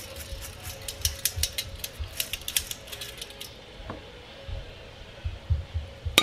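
Dried anchovies rattling and clicking against a perforated stainless-steel colander as it is shaken to sift out the small broken pieces. Rapid irregular clicks for about the first three and a half seconds, then softer low knocks.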